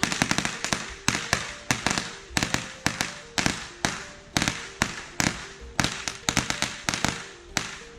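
A strip of firecrackers going off: loud, sharp bangs at about three or four a second in an uneven rattle, stopping shortly before the end.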